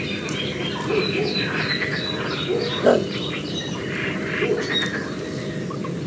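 Little bittern giving its low, grumbling call, a short grunt loudest about three seconds in, with other birds chirping and singing in the background.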